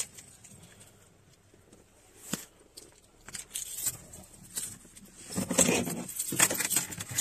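Handling and movement noise from someone getting out of a parked car: a single sharp click about two seconds in, then rustling and clattering that grows louder over the last two seconds.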